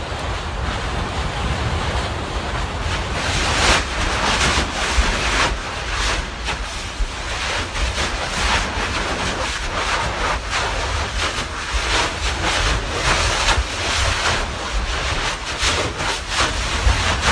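Kīlauea lava fissure erupting: a continuous rushing roar of gas and lava fountaining, broken by many sudden bursts as spatter is thrown out.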